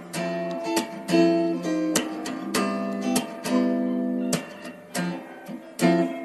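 Background music: an acoustic guitar strummed in chords, a new strum every half second or so.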